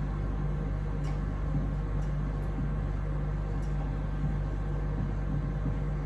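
Steady low hum in a small room. A few faint, brief scratches of a marker writing on a whiteboard sound over it.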